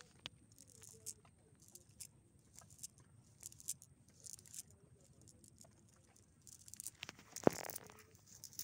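Nylon cast net being handled and spread on grass: scattered soft rustles and light clicks from its lead-sinkered edge. A louder bout of rustling with a sharp knock comes about seven seconds in.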